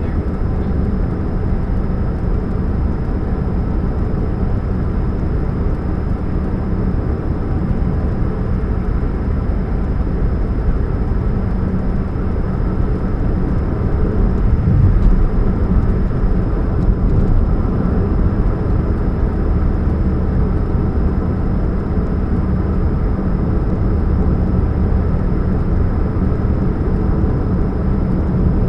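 2013 Chevrolet Spark's small four-cylinder engine and exhaust running with a steady low hum, the humming sound the owner puts down to a leak at the catalytic converter. It swells slightly about halfway through.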